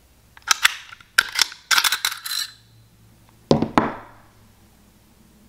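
Bulgarian Makarov pistol's slide being drawn back and lifted off the frame: a quick run of metal clicks and short sliding scrapes, then two heavier knocks about three and a half seconds in.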